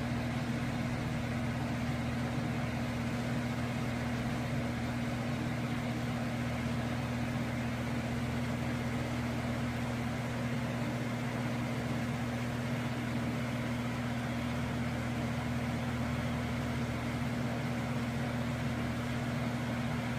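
Steady low electrical or mechanical hum with an even background hiss.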